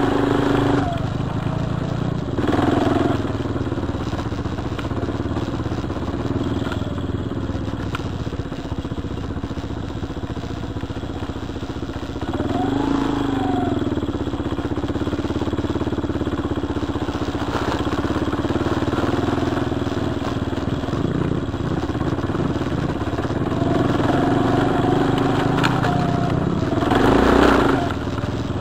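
Single-cylinder four-stroke ATV engine running while riding a dirt trail, its note rising and falling with the throttle. There is a quick rev up and back down about halfway through, and a louder, rising stretch near the end.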